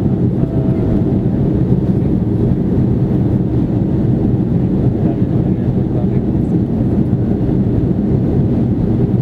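Steady drone of an Airbus A330-300's engines and airflow heard inside the passenger cabin, a constant low rumble with no change in level.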